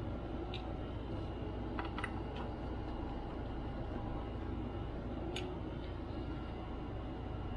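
A few faint, light clicks of small tools and screws being handled while a laptop's case is opened, over a steady low hum.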